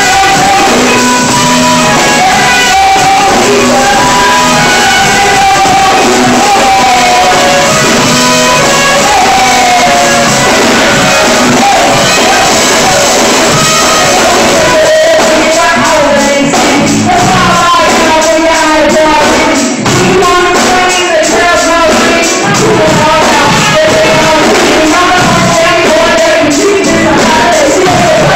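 Live band with a lead singer performing: singing over drums and backing instruments, loud and continuous.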